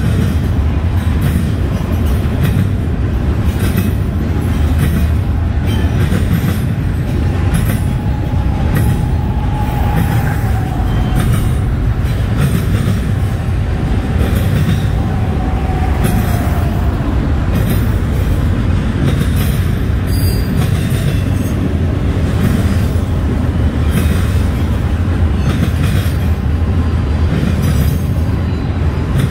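Freight train cars rolling past in a steady loud rumble, with wheels clicking over rail joints throughout. A faint wheel squeal comes in about eight seconds in and fades out a few seconds later.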